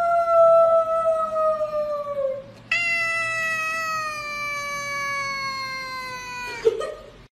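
Tabby cat giving two long, drawn-out meows, each sliding slowly down in pitch. The first trails off about two seconds in; the second starts a moment later and runs almost to the end, followed by a brief short noise.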